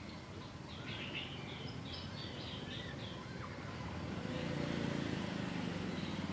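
A run of about eight short, high chirps like a small bird's, about a second in, over steady outdoor background noise; a low hum swells about four seconds in.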